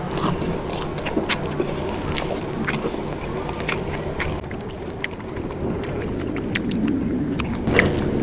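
Chewing and wet mouth clicks from someone eating nasi padang with tiwul, irregular short smacks over a steady low background rumble.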